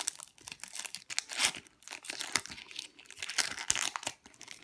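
Foil wrapper of a Pokémon trading card booster pack being torn open and crinkled: a dense, irregular string of sharp crackles.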